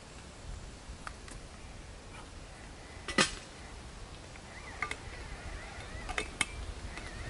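Metal vacuum flask and its cup clinking and clicking as they are handled and fitted back together: a few sharp knocks, the loudest about three seconds in and two close together near the end, over a steady soft hiss.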